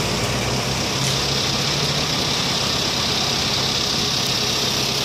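Engine of a truck-mounted crane running steadily at idle: an even low hum with a broad hiss over it.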